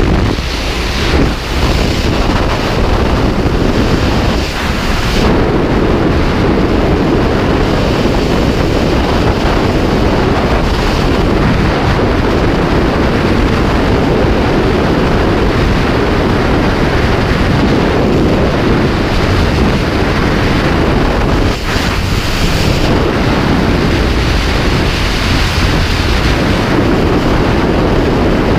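Freefall airstream rushing over the microphone: a loud, steady wind noise.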